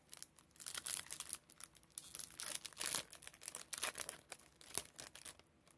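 A Topps Chrome trading card pack's foil wrapper being torn open and crinkled by hand: a run of irregular crackles.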